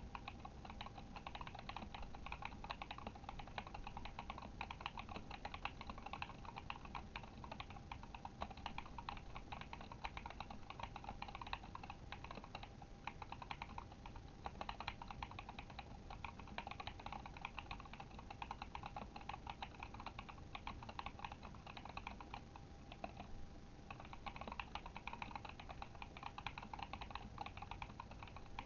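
Steady, continuous typing on a Kemove Shadow mechanical keyboard with Glorious Panda tactile switches. There is a short pause in the keystrokes a few seconds before the end.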